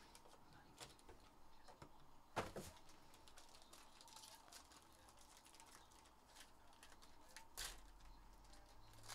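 Faint handling of a trading-card box and foil card pack: light crinkling and small taps, with a sharper click about two and a half seconds in and another near the end.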